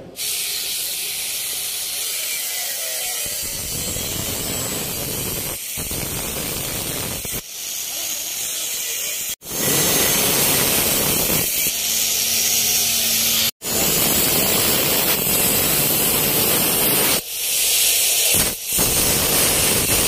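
Corded angle grinder with a thin cutting disc cutting through galvanized steel electrical trunking, cutting out the corner notches for a 90-degree bend. A steady harsh grinding noise, louder from about halfway through, broken off briefly a few times.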